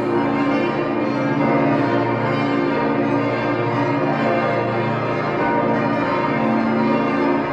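Full peal of a twenty-bell church plenum: many church bells ringing together in a dense, steady wash of overlapping strikes.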